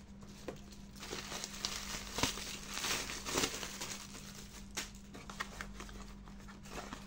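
Black plastic parcel bag crinkling and rustling as a cardboard box is pulled out of it and the cardboard is opened by hand. The crinkling is densest in the first half, with a few sharp ticks later on.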